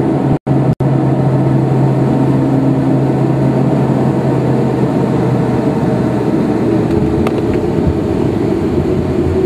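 Steady drone of an aircraft's engines and airflow inside the cockpit, with a low hum, as the aircraft rolls along the runway. The sound drops out twice, briefly, about half a second in. From about two-thirds of the way through, a deeper rumble and a higher steady hum come in as the aircraft turns off.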